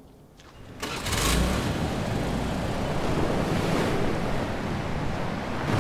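Ocean surf breaking on a sandy beach, with wind: a steady rush of noise that comes in suddenly about a second in.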